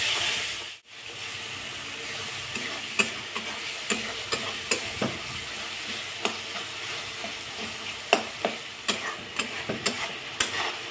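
Onion and capsicum masala frying in a metal kadhai with a little water added, sizzling steadily while a steel spatula stirs it, with frequent sharp clicks and scrapes of the spatula against the pan. The sizzle cuts out for an instant about a second in.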